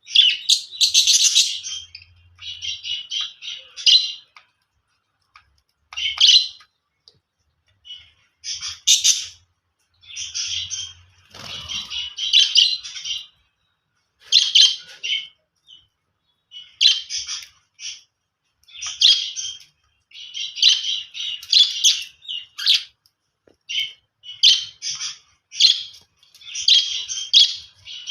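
Budgerigar chirping and chattering in quick bouts of one to two seconds, with short pauses between.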